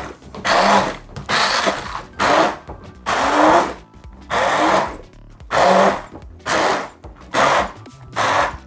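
Handheld stick blender worked in short bursts, about one a second, churning soaked peeled beans in water in a plastic bowl: the first rough blend of the beans.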